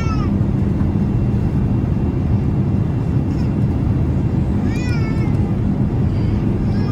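Steady cabin noise inside a Boeing 787-8 airliner, with a short high, wavering cry about five seconds in.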